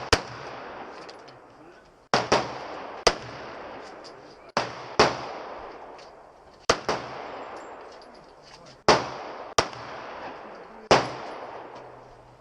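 Semi-automatic pistol fired one shot at a time at an uneven pace, about nine shots spaced one to two seconds apart. Each sharp crack trails off in an echo.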